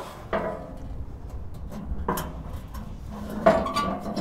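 Metal shank of a hitch-mounted motorcycle carrier being pushed into a vehicle's receiver hitch, metal scraping on metal, with three louder clanks that ring briefly. The loudest clank comes near the end.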